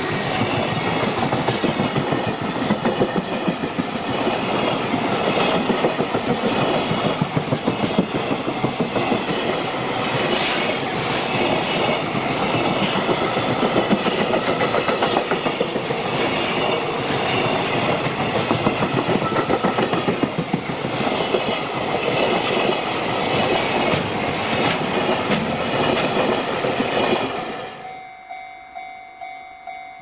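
A long JR Freight container train's flatcars rolling past close by, wheels clattering steadily over the rail joints. Near the end the train sound cuts off, leaving a quieter level-crossing warning bell ringing in a steady repeating pattern.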